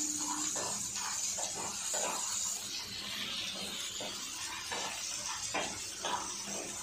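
Peanuts, green chillies and garlic frying in oil in a kadhai, stirred with a wooden spatula: a steady sizzle with short, irregular scrapes and knocks of the spatula against the pan.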